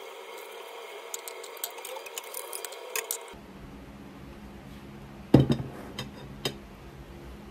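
A ceramic plate set down on a desk with one loud knock about five seconds in, followed by a couple of lighter clinks of a spoon and fork against it. Earlier there are faint scattered clinks of cutlery on a plate.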